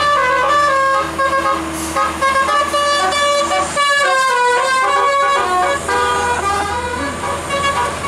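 A tour bus's 'telolet' multi-tone musical air horn playing a fast melody of stepped notes, with a low engine drone beneath.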